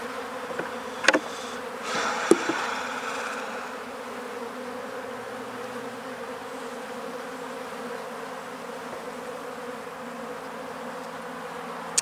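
Honey bees buzzing steadily around an opened, dead hive that robber bees are emptying. About one and two seconds in come two sharp knocks, with a short scraping just after, as the hive tool works a wooden frame loose.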